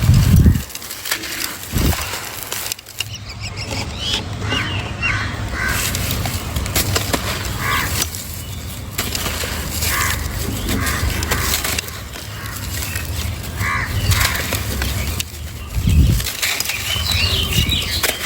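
Dry crumbling texture pieces (sand-and-cement type) being crushed and broken by hand: continuous gritty crunching and crackling, with a few dull thumps at the start, about two seconds in and about sixteen seconds in.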